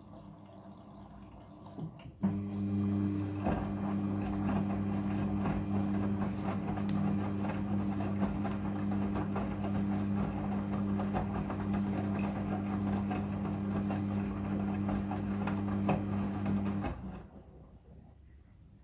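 Midea front-loading washing machine running. About two seconds in, a click starts a steady hum that holds evenly for about fifteen seconds and then cuts off near the end.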